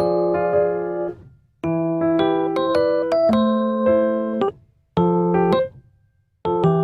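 Background music: a light, cute electric-piano tune played in short phrases, with brief pauses between them.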